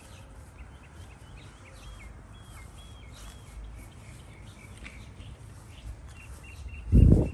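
Outdoor background with small birds chirping in short, high notes, some in a quick repeated series near the end. A brief loud low rumble comes just before the end.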